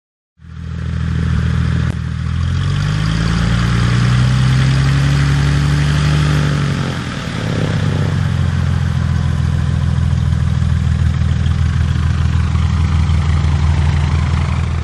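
Cessna light aircraft's piston engine and propeller running on the ground; the engine note climbs in the first few seconds, drops back about seven seconds in, then runs steadily.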